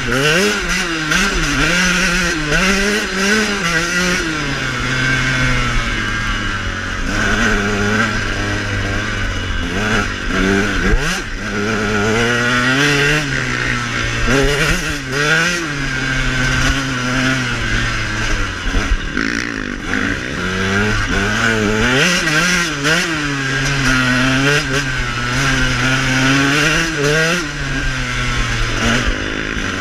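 KTM dirt bike's engine ridden along a trail, its pitch climbing and falling again and again as the throttle is opened and closed.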